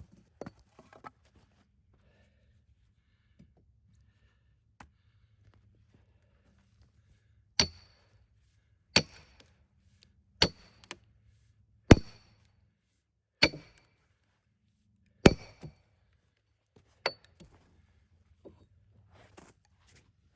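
Splitting maul striking a steel wedge driven into a cedar log: six hard metal-on-metal blows about a second and a half apart, each with a brief bright ring, then one lighter tap.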